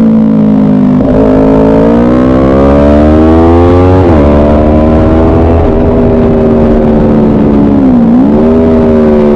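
Motorcycle engine heard onboard at speed on a racetrack. The revs climb steadily for a few seconds, drop sharply at a gear change about four seconds in, hold steady, then dip briefly and pick up again near the end.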